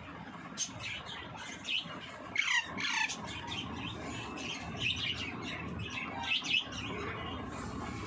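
A pet parrot giving a string of short squawks and chirps, one of them sliding down in pitch about two and a half seconds in.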